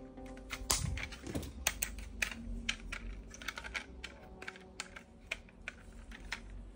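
Hard plastic toy gun parts being handled, giving irregular clicks and taps, with a dull knock about a second in.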